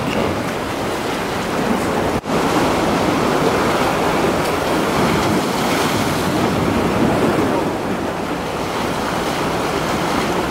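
Rough sea surf breaking and washing against rocks, with wind blowing across the microphone; the noise breaks off for an instant about two seconds in.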